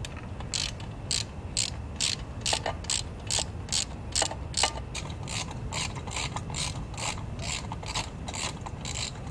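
Hand socket ratchet clicking in a steady, even run of strokes, about two to three a second, as a bolt is worked with a 10 mm socket.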